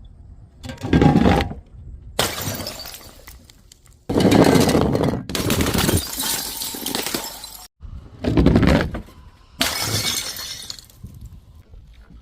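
Glass bottles smashing one after another, each a sudden crash of shattering glass with a ringing tail of falling shards, mixed with a couple of heavy low thuds of objects hitting the ground.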